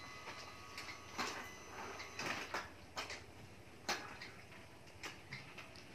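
Faint, scattered clicks and scrapes of a spoon against a plate as a child eats, with the sharpest tap a little before four seconds in.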